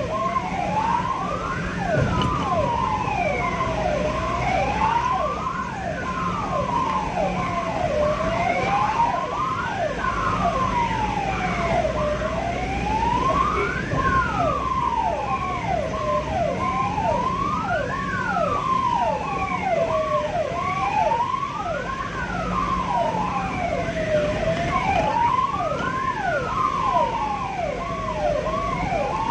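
Ambulance siren wailing in a slow rise and fall, about one cycle every four seconds, with quick falling chirps laid over it. Engine and road rumble runs underneath.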